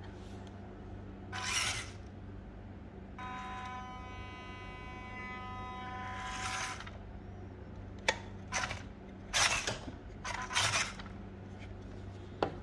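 WPL C24 RC crawler's electric motor and all-plastic drivetrain run under proportional electric speed control. A steady whine lasts about three and a half seconds as the throttle is eased on, then come several short, louder whirring blips of throttle.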